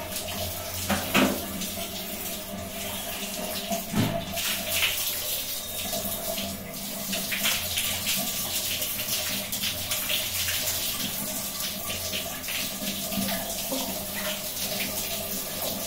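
Water running and splashing while an iron-clogged sediment filter cartridge is rinsed clean by hand, with sharp knocks about one and four seconds in.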